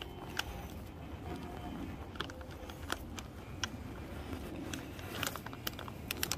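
Scattered light clicks and taps of small metal air fittings being handled and hand-threaded onto the air filter-regulator, over a low steady background.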